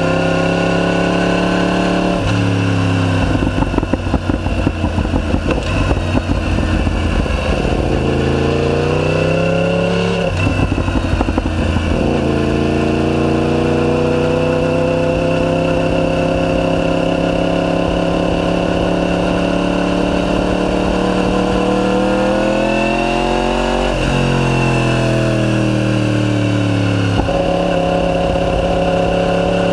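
Yamaha R1 inline-four with a decatted Akrapovic full titanium exhaust, accelerating hard. The engine note climbs through the revs and drops sharply at each upshift, several times over, with a rough rasp in the first several seconds. Near the end the revs fall away and then jump up once.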